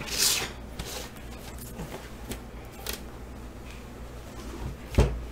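Sealed cardboard boxes of football trading cards being slid and restacked on a table: a brushing swish at the start, scattered light taps, and one loud thump about five seconds in as a box is set down.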